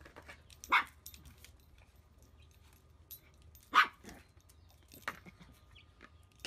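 A small dog barks twice, about three seconds apart, as it guards its food bowl against a bigger dog.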